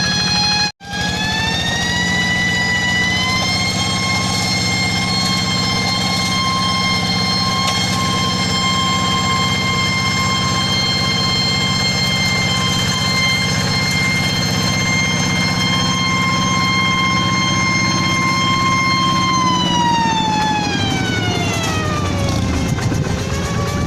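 Paddy-field tractor running with a loud, high-pitched 'nging' whine over its engine hum. The whine rises in pitch a couple of seconds in, holds steady for a long stretch, then falls away near the end.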